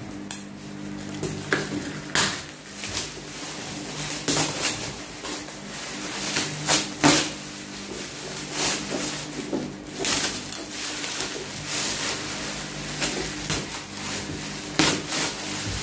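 Items being handled and unpacked: irregular clicks, knocks and rustles, some a few per second and some spaced apart, the loudest about 7 and 10 seconds in. A steady low hum runs underneath.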